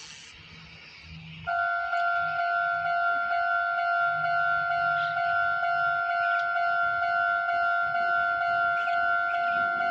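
Japanese railway level crossing warning bell starting up suddenly about a second and a half in, then ringing a loud, evenly repeated two-note electronic ding that signals an approaching train.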